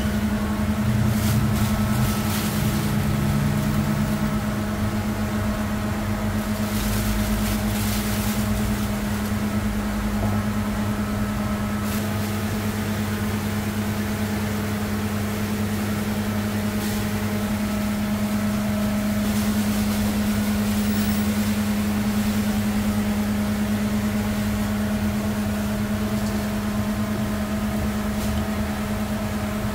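A steady mechanical hum, one unchanging low tone, with a few brief light clatters now and then as chickpeas and onions are dropped into the stone dizi pots.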